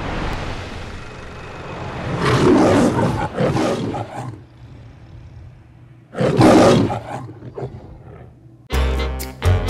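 The MGM logo's lion roaring: a long roar about two seconds in and a second one about six seconds in, over a fading music bed. Near the end, upbeat music with sharp drum hits cuts in suddenly.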